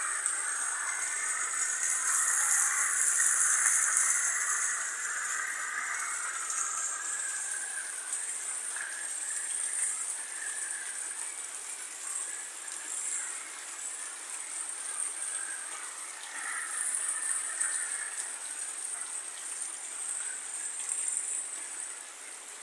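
Heavy rain pouring down, with runoff streaming off a roof edge and splashing onto the ground. A steady hiss, loudest a few seconds in.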